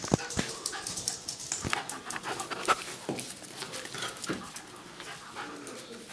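Two terriers playing tug-of-war with a toy, panting and scuffling, with frequent sharp clicks and knocks from their claws and bodies on the tile floor.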